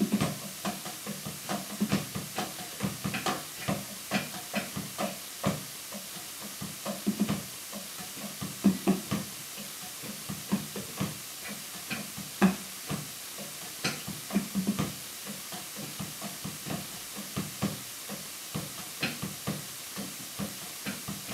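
Drum kit struck in scattered, irregular hits, a few of them ringing low like toms, over a steady hiss.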